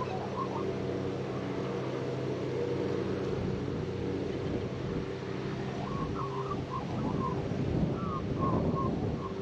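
Male Australian magpie singing softly: short warbling phrases at the start and again from about six seconds in. Under it are a steady low hum and wind.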